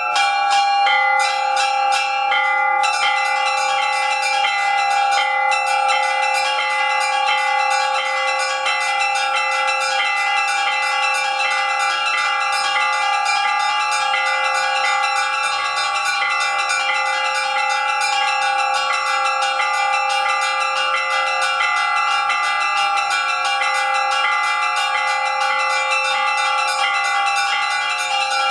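Russian Orthodox church bells rung by a bell ringer from the belfry: fast, even chiming of the small bells over the sustained ringing of the larger ones.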